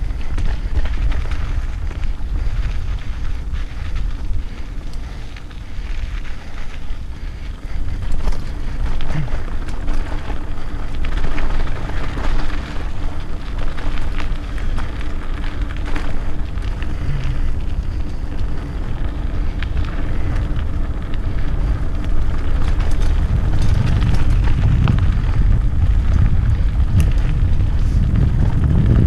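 Wind buffeting the microphone of a helmet camera on a mountain biker riding a dirt forest trail, with tyre noise and sharp rattles of the bike over bumps. The rumble grows heavier in the last few seconds as the pace picks up.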